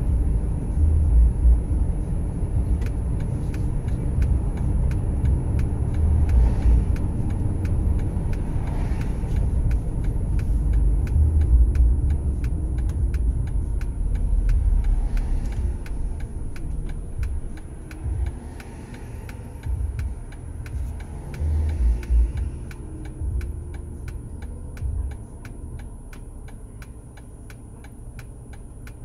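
Car cabin road noise while driving: a low rumble of tyres and engine that eases as the car slows to a stop in traffic, with a steady light ticking running through it.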